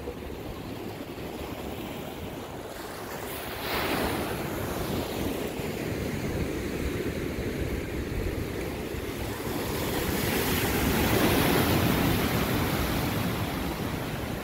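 Ocean surf breaking and washing around pier pilings and a rock breakwater, a steady rushing wash. It surges sharply about four seconds in and swells to its loudest later on.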